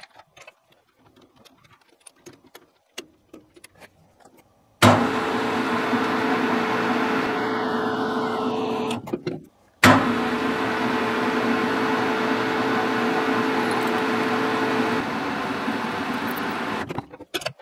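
Small clicks of the round bar and chuck being handled, then a metal lathe starts suddenly and runs with a steady hum while the tailstock drill chuck centre-drills the spinning bar, and stops after about four seconds. It starts again a moment later and runs about seven seconds while a 5 mm twist drill bores into the bar, its hum changing a little near the end before it stops.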